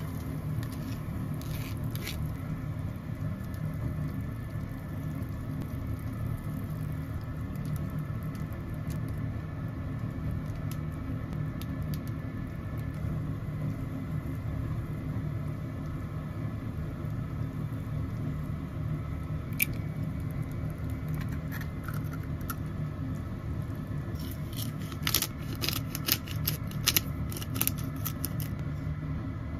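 A steady low rumble of a pot cooking on a gas stove, with scattered light taps and clicks of chopsticks and ingredients against a small aluminium pot. The taps come thickest near the end.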